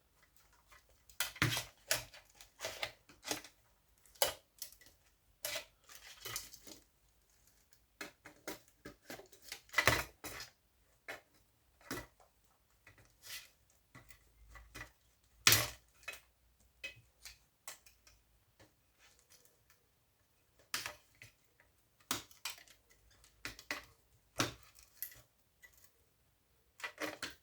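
Hand cutters snipping and prying parts off a power-supply circuit board: irregular sharp clicks and small metal clinks, the loudest about ten and fifteen seconds in.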